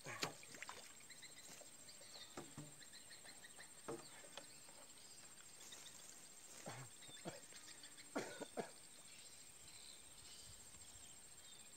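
Faint outdoor ambience: a steady, high-pitched insect chirring with faint bird chirps. A few brief soft knocks are scattered through it, the loudest near the start and about eight seconds in.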